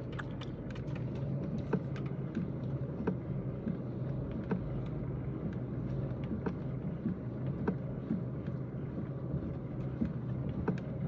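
Irregular light clicking from under the steering wheel of a Kia Rio 3, a few clicks a second, over a steady low hum of the car. The owner says the clicking goes away when the steering wheel is tilted up, pointing to the steering column.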